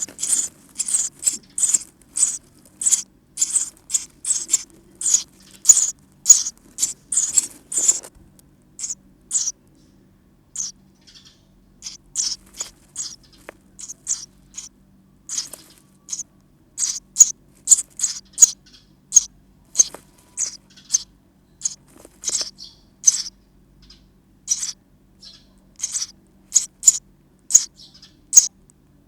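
Sparrow nestlings calling inside a nest box: rapid high chirps, about two to three a second, thinning out for several seconds in the middle before picking up again.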